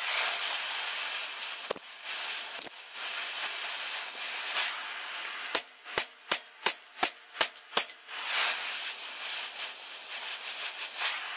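Steady hiss of a gas torch heating an 8mm rivet in a gate bar. About halfway it is broken by some eight quick, sharp hammer blows peening the red-hot rivet head on the anvil, about three a second, then the hiss comes back.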